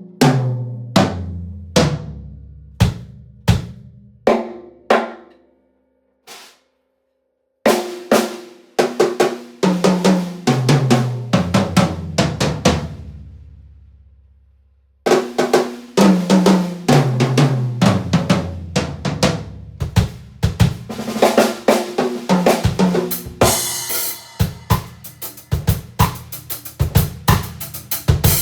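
Acoustic drum kit played solo and unprocessed: separate snare, bass-drum and tom strikes at first, then fills running down the toms. The playing stops twice, once for about two seconds and once while a drum rings out, then resumes busier, with cymbals crashing in near the end.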